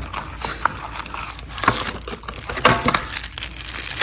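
Packaging being handled, with irregular crackling and crunching, typical of plastic wrapping being crinkled while small parts are unwrapped.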